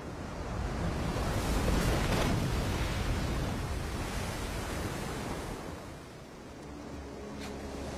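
Ocean surf breaking on a sandy shore, with wind. The wash swells to its loudest about two seconds in and eases off around six seconds.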